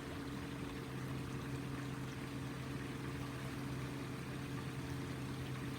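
A steady low machine hum with a faint hiss, unchanging throughout.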